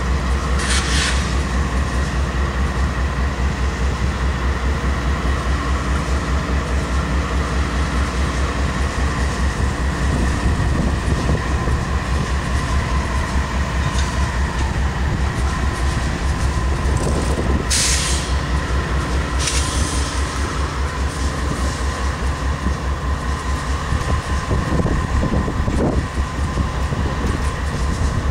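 GE AC4400CW diesel locomotive standing and idling with a steady, pulsing low rumble. Three short hisses cut through it, one about a second in and two close together past the middle.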